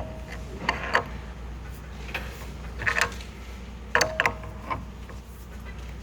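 Adjustable wrench turning the head of a crank puller threaded into a spin bike's crank arm: a few irregular metal clicks and clinks as the wrench is fitted and worked, one about four seconds in ringing briefly.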